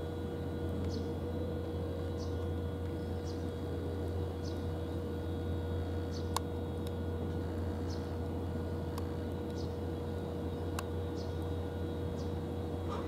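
Steady low hum with a faint steady higher tone, a short faint high chirp about once a second, and a few sharp clicks.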